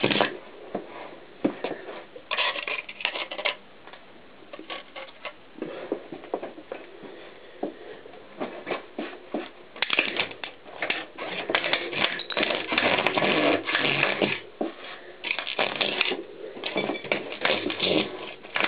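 Mountain bike tyre rolling back and forth over a plastic tape cassette on a concrete floor, the cassette's shell cracking and crunching into pieces under it: irregular crackling and snapping, denser and louder from about halfway through.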